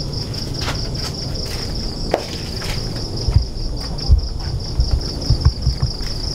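Night insects chirring in a steady, fast-pulsing trill, with irregular low thuds of footsteps from about three seconds in.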